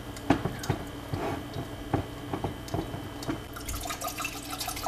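Wing corkscrew drawing the cork from a wine bottle, with a few sharp clicks and knocks. About three and a half seconds in, red wine starts pouring from the bottle into a glass.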